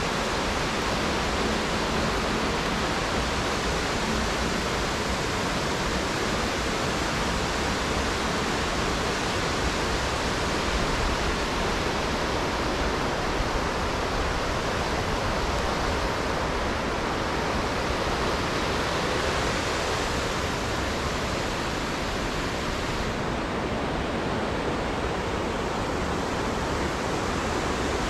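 Steady, unbroken rush of a creek and waterfall's water.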